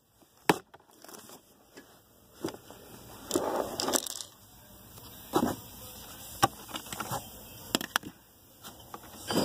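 Plastic clicks, knocks and rustling from a 2014 Toyota Corolla's glove box being dropped down and its cabin air filter housing cover being unclipped: a string of sharp separate clicks with a couple of short scraping rustles.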